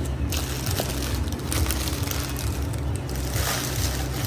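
Paper sandwich wrapper crinkling and rustling as it is unwrapped by hand, over a steady low hum.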